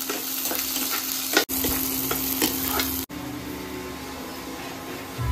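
Food frying in hot oil in a kadhai, sizzling and crackling as it is stirred. About three seconds in, the sizzle drops to a softer, steadier hiss.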